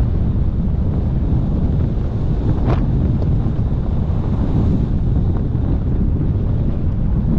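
Wind buffeting the microphone: a loud, steady low rumble with a brief gust-like rush about three seconds in.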